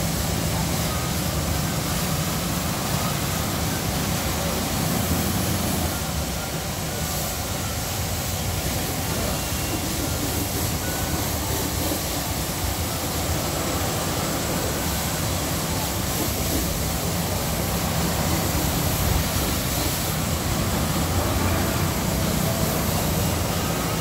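High-pressure washer spraying water onto a car: a steady loud hiss with a low hum underneath.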